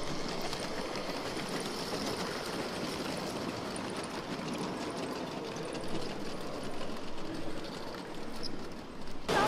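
LEGO train running along plastic track: the whir of its small electric motor and the rapid clatter of plastic wheels, steady throughout, cut off abruptly just before the end.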